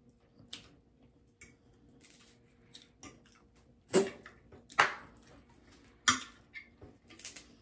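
Crab-leg and lobster shells and utensils cracking and clicking against plates during a seafood meal: about five scattered sharp clicks and cracks, the loudest near the middle.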